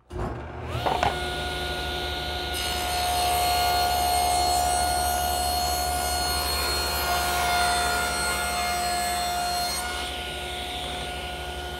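Table saw switched on, its motor coming up to speed within about a second to a steady whine. Its blade then rips a narrow board, about 2 inches wide, for roughly seven seconds. The cut ends about ten seconds in, and the blade spins on free.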